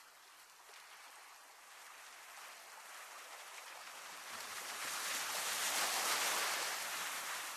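Sea waves washing against a rocky shore: a steady hiss of water that swells into a louder surge about five seconds in, then starts to ebb.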